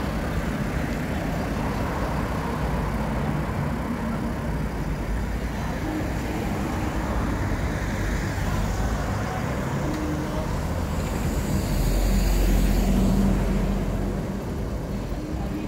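City street traffic at night, a steady noise of passing vehicles. It swells into a louder, low rumble about twelve seconds in as a city bus passes close by.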